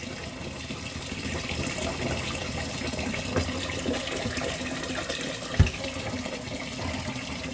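Kitchen tap running into a stainless steel pot of washed rice in the sink, filling the pot with water, with a single knock a little past halfway.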